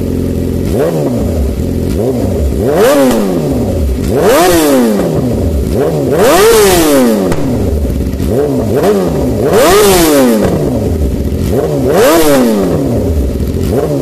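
Yamaha R6 inline-four sportbike engine through an aftermarket SC-Project slip-on exhaust, revved in a series of quick throttle blips. Each blip rises sharply in pitch and falls back to idle, some higher than others.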